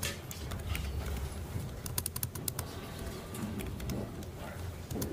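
Scattered light clicks and taps from a laptop and its video cable being handled while trying to connect it to a projector, over a low steady room hum.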